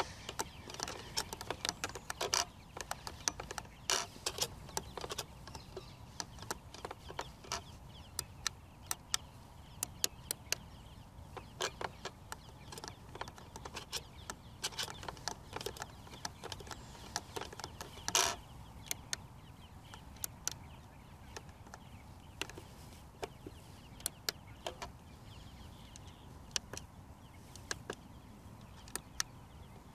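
Irregular plastic clicks and clacks from a Hubsan X4 Pro (H109S) radio-control transmitter being handled, its two sticks spun around their limits and its trim buttons and switches pressed during stick calibration; one louder burst of clicks comes about 18 seconds in.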